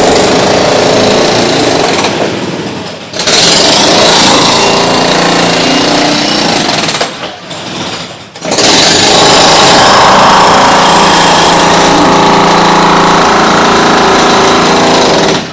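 Excavator working on demolition, its diesel engine running hard under load in a loud continuous din that drops away briefly twice, about two and seven seconds in.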